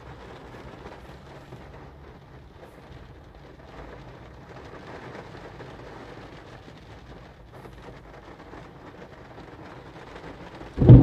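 Heavy rain falling on a car's windshield and roof, heard from inside the car as a steady hiss. Near the end, a sudden loud thunderclap breaks in.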